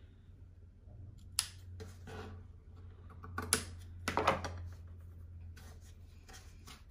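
Fabric scissors snipping through cotton patchwork pieces: a few short, sharp snips, the loudest a little past the middle, followed by lighter handling of the cut fabric.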